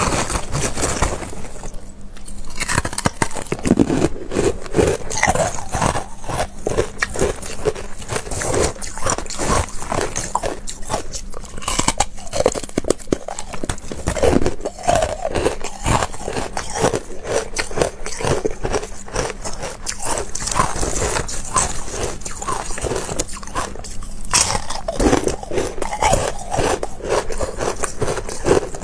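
Close-miked biting and crunching of carbonated ice chunks, a dense run of irregular cracks and crunches as the ice is chewed, with fingers scraping among the ice pieces in a plastic bowl.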